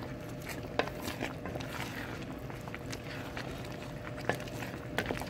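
Wooden spoon stirring thick okra soup in an enamelled pot, with irregular light knocks and clicks as the spoon hits the pot's sides.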